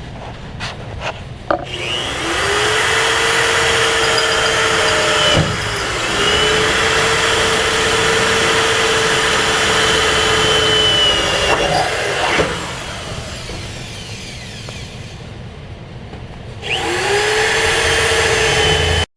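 Electric drill with a 1/4-inch pilot bit drilling pilot holes. The motor spins up about two seconds in and runs steadily with a brief stop around five seconds. It runs on until about twelve seconds and starts again a few seconds before the end. A few light clicks come before the first run.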